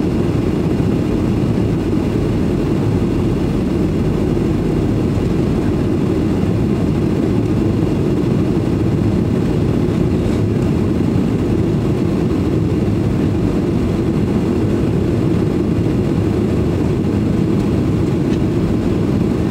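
Steady, deep cabin noise inside a Boeing 737-800 airliner in flight on approach, the hum of its CFM56-7B turbofan engines and the rush of air over the fuselage, even and unchanging throughout.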